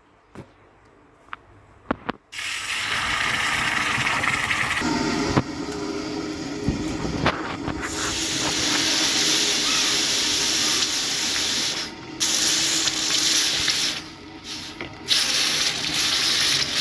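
Hot steel hammer head being quenched in water, hissing with steam in long spells that break off briefly and start again a few times, as part of hardening and tempering it. A few small clicks come before the hissing starts.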